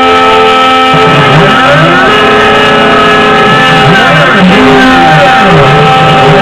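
CNC-3040AL desktop router milling aluminium: the spindle gives a steady high whine while the stepper motors whine up and down in pitch as the axes speed up and slow down, over and over.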